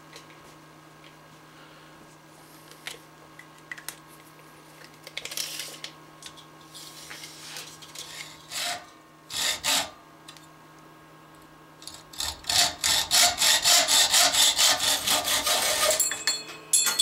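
Hacksaw cutting an aluminium antenna element clamped in a bench vise, trimming it to a corrected length mark: a run of brisk back-and-forth strokes, about three a second, over the last few seconds. Before it come scattered light clicks and rustles of handling, and after it a few metallic clinks.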